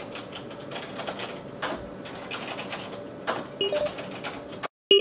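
Typing on a computer keyboard: quick, irregular keystroke clicks. Near the end, short electronic beeps signal an incoming call.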